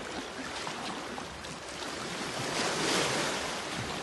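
Sea waves washing against shoreline rocks, a steady wash with one surge swelling up about three seconds in.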